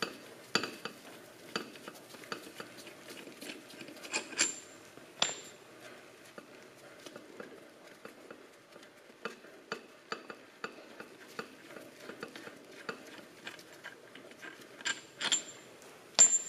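Steel connecting-rod parts of a John Deere 4020 engine clinking and tapping as the rod cap is taken off and its bolts are set down. Scattered sharp metallic clinks, several ringing briefly, the loudest near the end.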